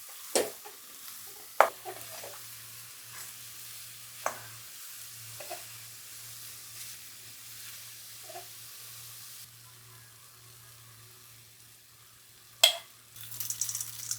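Food frying in hot oil, sizzling steadily, with a few sharp clinks of a utensil against the pan. The sizzle fades about nine and a half seconds in, and a loud clink and a brief rattle of utensils come near the end.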